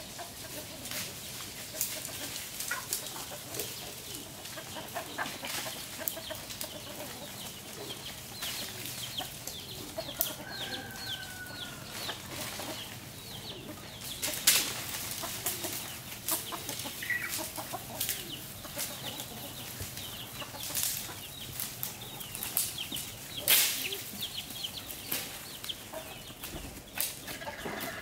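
Chickens clucking and calling among many sharp clicks and scuffling sounds, with two louder knocks, one about halfway through and one near the end.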